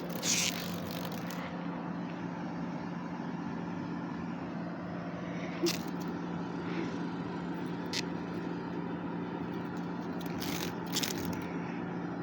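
Steady low hum under an even haze of outdoor background noise, with a few short clicks spread through.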